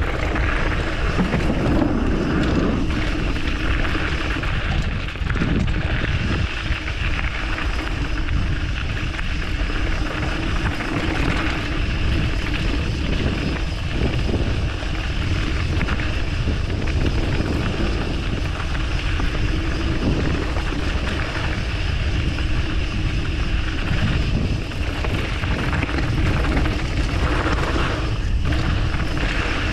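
Wind rushing over an action camera's microphone as a mountain bike descends a dirt trail. The tyres rolling and the bike rattling over bumps sound in bursts now and then.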